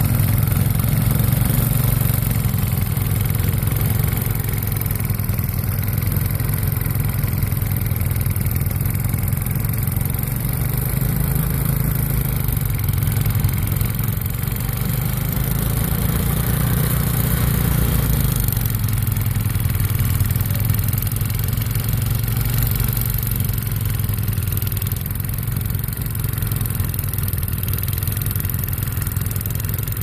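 Gasoline snowblower engine running steadily under load while its auger and chute throw snow.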